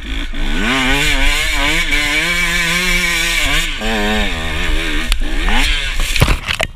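Enduro dirt bike engine revving hard under load on a steep hill climb, the revs rising and falling as the rear wheel hunts for grip, with a dip about halfway and wind rushing on the helmet microphone. A few sharp knocks come near the end before the sound cuts off suddenly.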